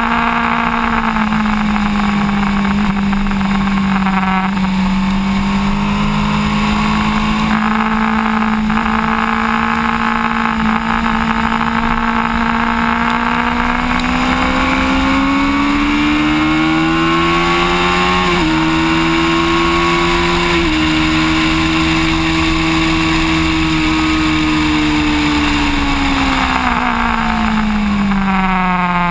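Sport motorcycle engine running hard at track speed. Its pitch holds steady for the first half, climbs for several seconds past the middle with a couple of small steps, then falls away near the end.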